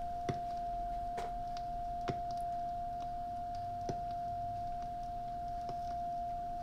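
Steady 700 Hz test tone, a pure single pitch played from a test record through an Ortofon Concorde MK II Digital turntable cartridge, with a few light ticks about a second or two apart.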